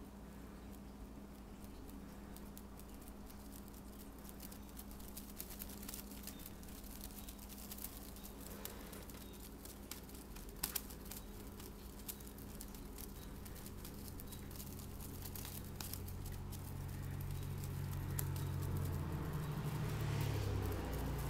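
Light scattered clicks and soft rustling as a cat bats at a feather wand toy, over a steady low hum. A low drone builds near the end and becomes the loudest sound.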